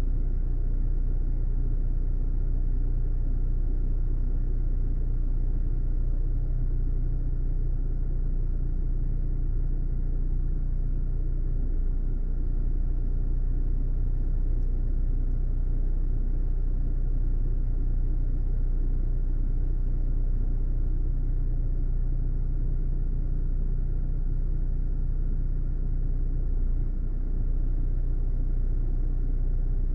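Car driving, a steady low rumble that keeps an even level throughout.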